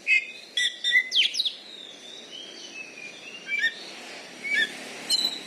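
Oriental magpie-robin (kacer) singing: a loud burst of sharp whistled notes and quick falling glides in the first second and a half, then softer, varied whistled phrases.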